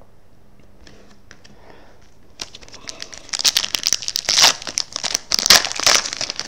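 Trading card pack wrapper being torn open and crinkled, starting about two and a half seconds in, with irregular sharp crackling rustles.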